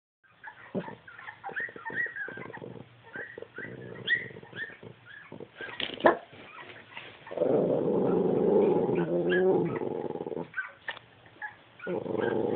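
A Cavalier King Charles Spaniel making strange, unhappy vocal noises: a string of short high whimpers and yips, then a long, low, wavering growl-like grumble from about seven to ten seconds in, starting again near the end.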